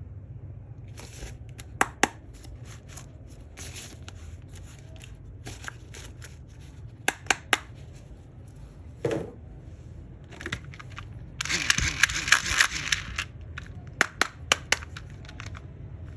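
Plastic packaging and toys being handled for an unboxing: scattered sharp clicks and taps, with a longer burst of crinkling and tearing a little past the middle.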